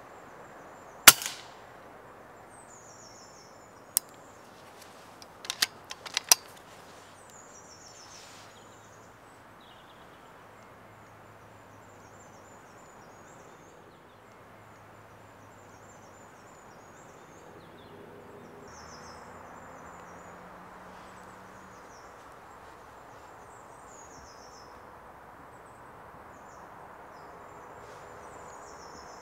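Birds chirping repeatedly in woodland, broken about a second in by one loud sharp crack, then a single click a few seconds later and a quick run of clacks.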